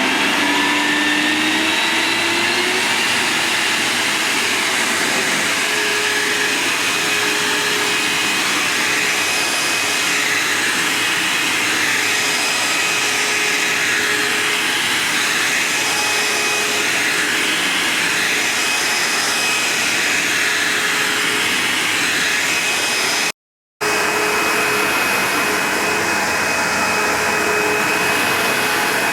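Vax HF1400 New Wave carpet washer and vacuum cleaner's motor starting up, its whine rising over the first couple of seconds, then running steadily with a steady whine. The sound cuts out for a split second about three-quarters of the way through.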